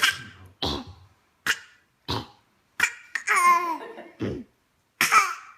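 A small child fake-coughing: a string of short, forced coughs, about seven of them, roughly one a second, with a high-pitched laugh about three seconds in.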